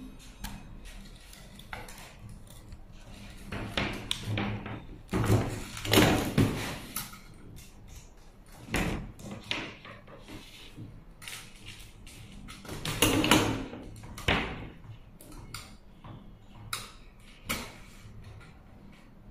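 Handling noise from threading fibre optic cable through the entry ports of a GP03Z dome splice closure base: plastic scrapes, rubs and clicks in irregular bursts, with two louder spells of scraping.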